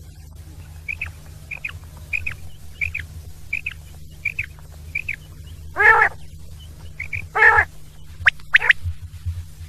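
Quail calling: a run of seven quick paired chirps about two-thirds of a second apart, then two louder, rougher calls about halfway through and a few sharp whistled notes near the end, over a steady low hum.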